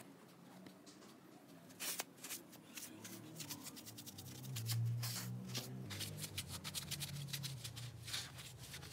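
A hand scrubbing tile grout lines, a faint run of quick, irregular rasping strokes.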